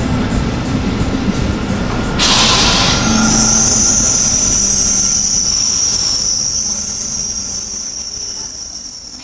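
SBB ETR 610 electric train moving along a station platform with a steady rail rumble. A short loud hiss comes about two seconds in. From about three seconds in, a steady high-pitched squeal of the wheels or brakes sounds over the rumble.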